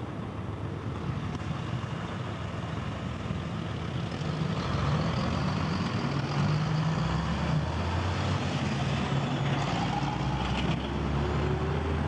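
Large truck driving past on the road, its engine getting louder from about halfway through as it comes close, with the engine pitch rising near the end as it accelerates. Other road traffic runs underneath.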